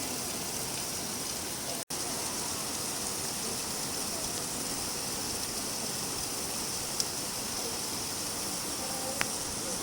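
Steady rainfall, an even hiss of many drops, that cuts out for an instant about two seconds in. Near the end there are a couple of single sharper drip ticks.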